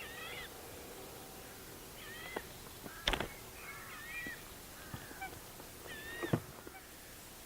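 Waterfowl calling across the water: a string of short honking calls, about six, with a single sharp snap about three seconds in.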